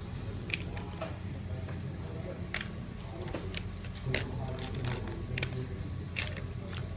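Short, scratchy strokes of colouring sticks on a sheet of paper as several hands colour a drawing, coming irregularly about once a second, over a steady low background hum.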